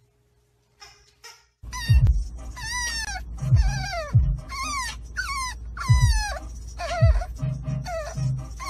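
French bulldog puppy whining: a series of high whines that each fall in pitch, starting about a second and a half in, over the steady low rumble of the car.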